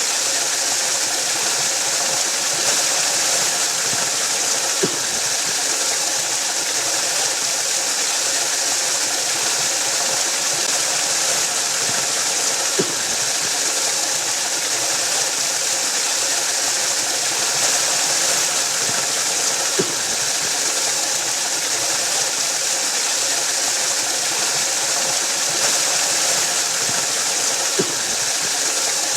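Waterfall pouring onto rock: a steady, continuous rushing hiss with no change in level. Four faint clicks come at even intervals of about seven to eight seconds.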